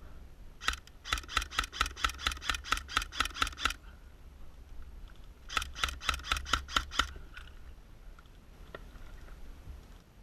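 Airsoft gun firing two volleys of quick, evenly spaced shots at about five a second: a string of some fifteen shots about a second in, then about eight more a couple of seconds later.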